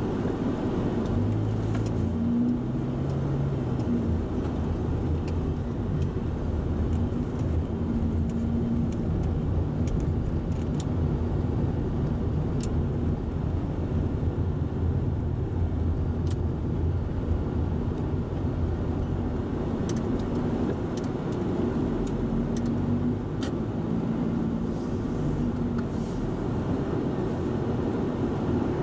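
Road and engine noise inside a Toyota Voxy minivan's cabin while driving: a steady low rumble, with the engine note stepping up and down in pitch a few times as the speed changes.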